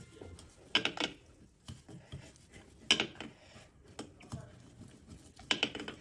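Taps and clicks on a granite counter as a lump of hot sesame-and-sugar mixture is pressed flat by hand, in three short clusters about a second in, three seconds in and near the end, with a few fainter clicks between.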